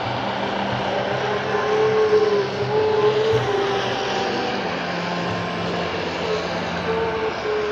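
Steady rushing of a fast mountain river, with a pitched tone over it that wavers and steps up and down in pitch.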